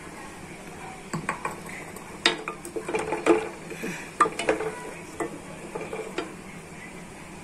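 Wooden spoon stirring rice into hot milk in a stainless steel Amway Queen pot. The spoon makes irregular knocks and scrapes against the pot, starting about a second in and stopping shortly before the end.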